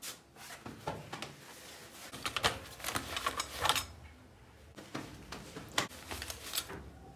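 Hands patting down and rubbing over a person's clothing in a body search: fabric rustling with scattered light taps and clicks.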